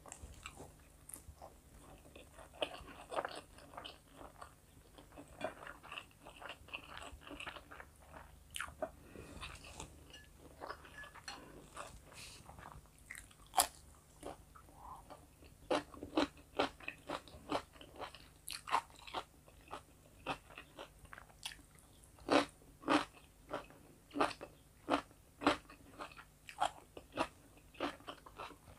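Close-miked eating: a person chewing mouthfuls of rice and chicken fillet, then crunching on fresh cucumber slices, with a steady run of sharp crunches about one or two a second in the second half.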